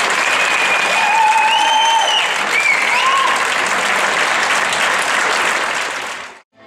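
Audience applauding, with a few high drawn-out cheers over the clapping in the first three seconds; the applause fades out about six seconds in.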